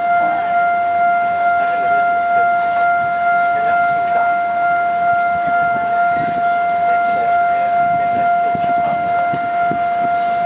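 Railway level-crossing warning alarm sounding one loud, steady electronic tone without a break, signalling that a train is approaching and the barriers are down.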